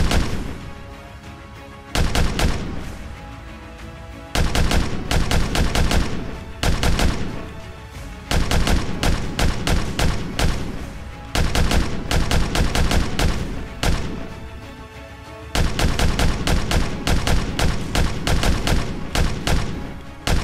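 Paintball markers firing in a series of rapid bursts of several shots a second, with short lulls between bursts, over background music.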